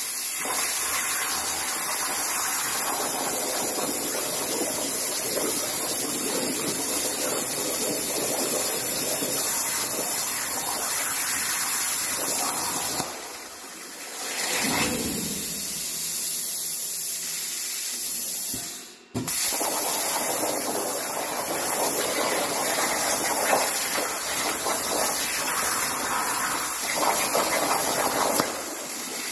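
CNC plasma cutter on a water table, its arc hissing loudly and steadily as it cuts metal plate. The hiss drops away twice near the middle, the second time almost to nothing for a moment, then starts again.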